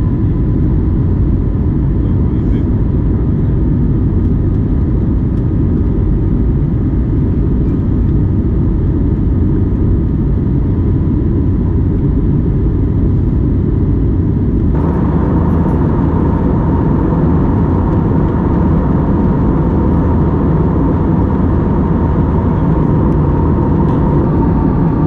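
Steady cabin noise of an Airbus A321neo in flight, heard from a window seat: a constant low rumble of engines and air with a faint steady hum. About fifteen seconds in the sound changes abruptly to a brighter roar with a stronger hum.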